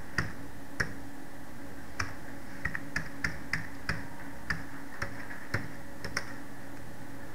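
Computer keyboard keys being tapped as figures are typed in: a dozen or so sharp, irregularly spaced clicks over a steady low hum.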